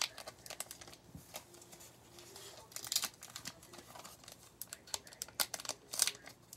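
A baseball card pack and its cards being handled: quick papery clicks and snaps, with a denser rustle about three seconds in and again near the end.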